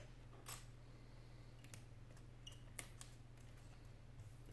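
A few faint clicks and taps of hands handling an opened iPad 4's display and aluminium frame, the sharpest just under three seconds in, over a steady low hum.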